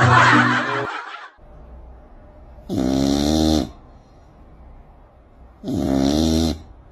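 Cat snoring in its sleep: two long, rough snores about three seconds apart, each wavering in pitch, after a short rasping breath at the start.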